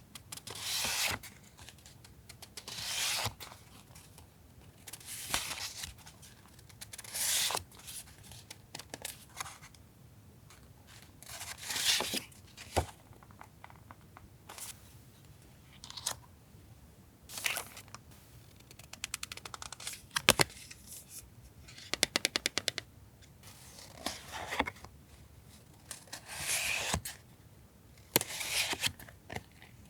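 Paper and plastic packaging of stationery goods rustling and crinkling as they are handled, in short bursts every second or two, with a run of quick clicks about twenty seconds in.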